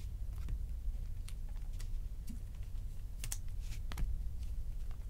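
Baseball trading cards being handled and laid down on a table: scattered, irregular light clicks and rustles, over a low steady hum.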